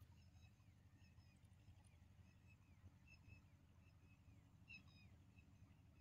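Near silence: faint outdoor ambience with repeated short high chirps, a couple a second and some gliding downward, a slightly louder cluster near the end, over a low steady rumble.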